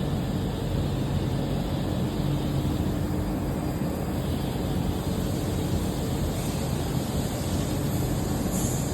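Automatic snap strip ring making machine running with a steady mechanical drone and a low hum.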